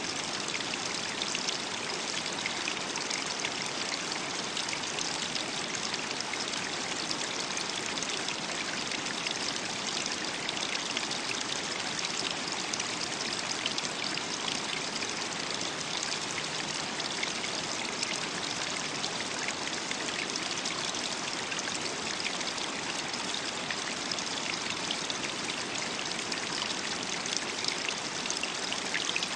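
Running water of a stream, trickling steadily.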